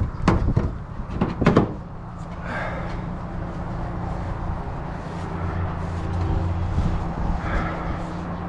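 A few sharp clanks of metal tools and equipment being handled in the first two seconds, then a vehicle engine idling with a steady low hum.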